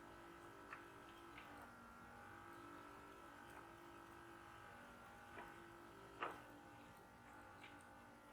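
Near silence: a faint steady hum with a few light clicks, the sharpest about six seconds in.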